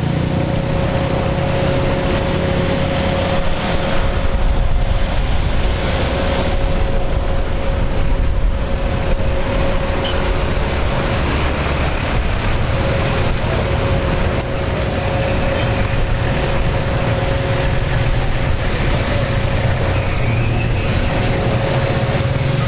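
Steady jet aircraft noise on the apron: a loud, even rush with a low rumble and a constant mid-pitched whine that drops back briefly a couple of times.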